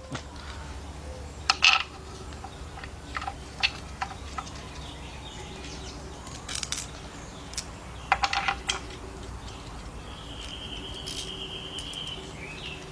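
Scattered light metal clicks and taps as new steel bolts are handled and started by hand into the transmission bell housing. A thin high note is held for about two seconds near the end.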